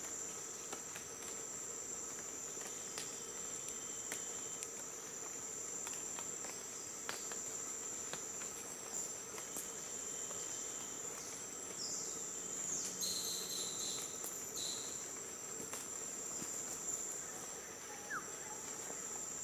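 Steady, high-pitched drone of Amazon rainforest insects. A few short bird whistles, some falling in pitch, come about two-thirds of the way through.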